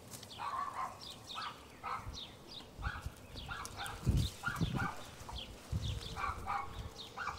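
Dogs barking: a dozen or so short barks at an uneven pace, with birds chirping high over them. A few low thumps come about four to five seconds in.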